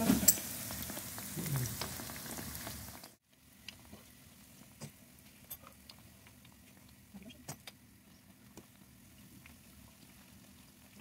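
Pieces of bread dough deep-frying in a pan of hot oil, sizzling. The loud sizzle cuts off abruptly about three seconds in, giving way to a much quieter sizzle with scattered sharp pops.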